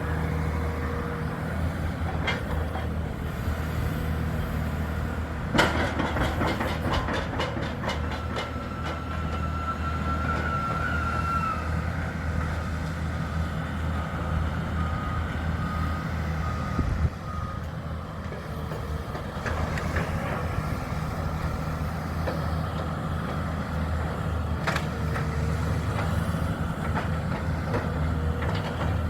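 Heavy diesel machinery running steadily, with a burst of rapid metallic clattering about six seconds in and a series of warning beeps a little past the middle.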